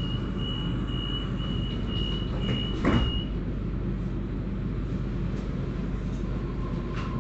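Suburban electric train's door-closing warning: a pulsing high-pitched beep, then the sliding doors shut with a loud thump about three seconds in, over the train's steady hum. A lower steady tone begins near the end.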